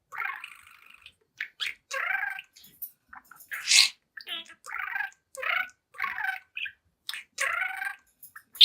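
Young budgerigar chattering in front of its mirror: a quick run of short warbles and chirps with a louder, sharper chirp near the middle.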